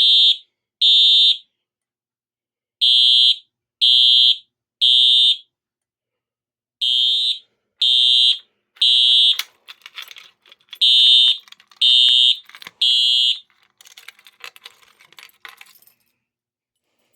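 Simplex TrueAlert ES electronic fire alarm horn sounding the code-3 temporal pattern, the standard evacuation signal: three loud, high-pitched half-second blasts, a pause, then three more, repeated. It stops about thirteen seconds in.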